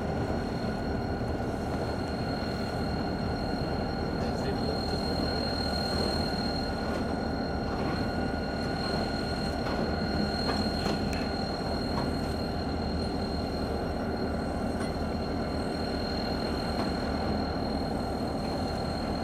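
Diesel locomotive engine of a GP40M-3 running steadily at low power, a constant rumble with a steady high whine above it.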